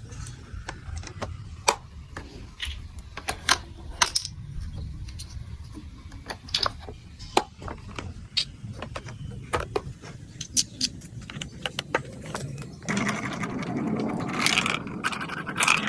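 Marbles rolling down a plastic building-block marble run: a steady low rumble with irregular sharp clicks as they hit the plastic track pieces. About three-quarters of the way in it turns into a louder, denser rattle, as of many marbles running together.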